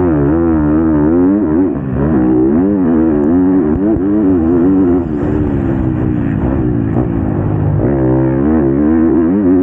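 Motocross bike engine heard close up from the bike itself, revving hard and dropping off again and again as the rider accelerates, shifts and rolls off through the corners. Its pitch holds steadier for a few seconds in the middle before climbing again near the end.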